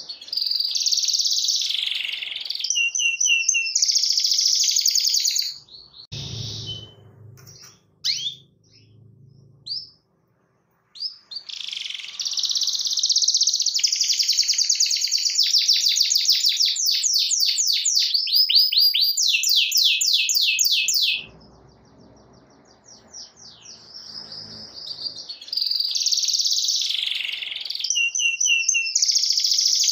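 Domestic canary singing long, rapid phrases of high rolling trills and fast repeated notes. A first burst of about five seconds is followed by several seconds of scattered single notes, then a long unbroken run of about ten seconds, and a further burst near the end.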